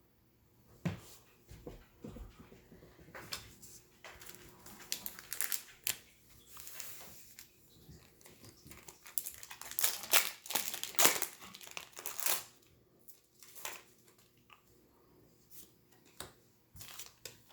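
Wrapper of a Magic: The Gathering promo pack crinkling and tearing as it is opened, in irregular bursts, loudest about ten to twelve seconds in.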